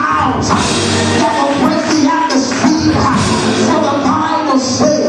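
Loud, upbeat live church praise music in a rock style, played continuously.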